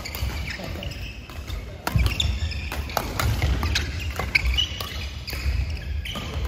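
Badminton doubles rally: rackets striking the shuttlecock in sharp cracks every half second to second, with short high squeaks of court shoes on the mat and thudding footwork in a large echoing hall.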